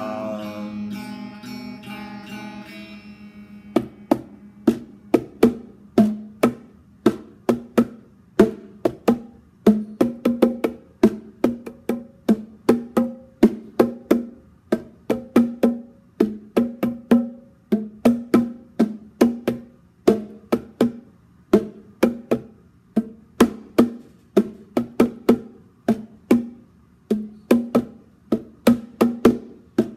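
Electric guitar: a chord rings out and fades over the first few seconds. From about four seconds in, short, sharp picked notes or chords follow in a steady rhythm of about two a second.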